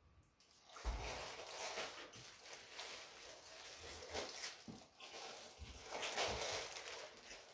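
Clear plastic bag crinkling and rustling as a bagged device is handled and pulled free of its foam packing, starting about a second in. A few dull handling knocks sound under it.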